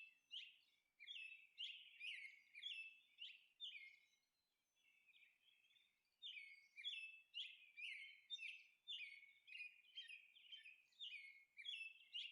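Faint bird chirping: a quick series of short, falling chirps, about two to three a second, with a pause of a couple of seconds partway through.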